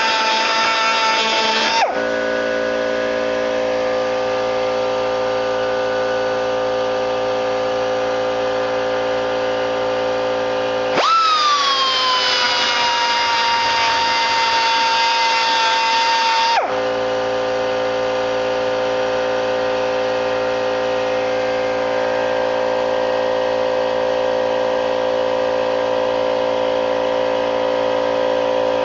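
Pneumatic 1/4-inch die grinder whining at high speed; it cuts off about two seconds in. It starts again about eleven seconds in with a pitch that jumps up and then sinks and settles, and stops abruptly some six seconds later, grinding down a weld bump. A steady machine hum runs underneath throughout.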